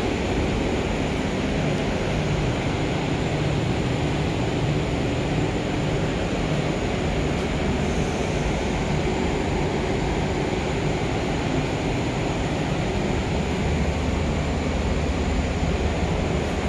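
Steady rushing noise with a low rumble, unchanging throughout.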